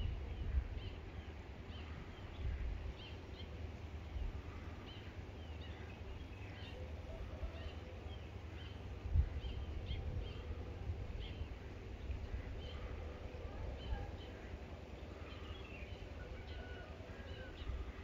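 Many small birds chirping in quick, short calls at dawn, over a steady low rumble on the microphone. A single thump comes about nine seconds in.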